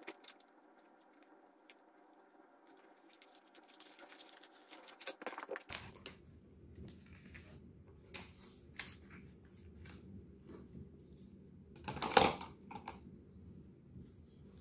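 Paper rustling and flicking as banknotes and booklets are handled and counted by hand on a wooden table: scattered light clicks and rustles over a steady low hum, with one louder rustle about twelve seconds in.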